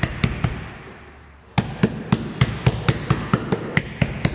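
Gloved flat hands slapping a freshly set windshield in quick runs of about five slaps a second, pressing the glass down into its urethane bead. A short run at the start and a longer one after a gap of about a second.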